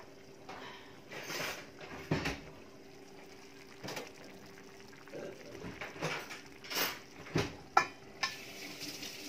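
Stainless steel lid being lifted off a skillet and set back on, with a series of metallic clinks and knocks; the sharpest clink comes near the end as the lid goes back on.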